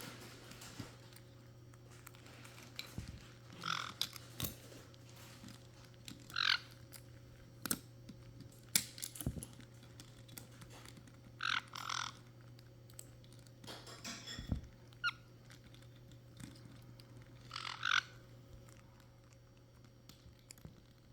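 Caique parrots giving about five short squawks, scattered among sharp clicks and taps of beaks picking at something.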